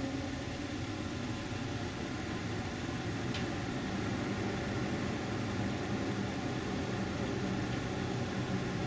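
Steady low rumble and hiss with faint steady hums, and one brief faint high sound about three and a half seconds in.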